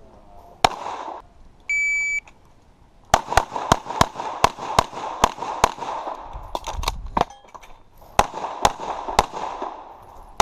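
A single pistol shot, then the electronic shot timer's half-second start beep. About a second later comes a fast string of about eight pistol shots, and after a pause three more, each followed by a ringing tail.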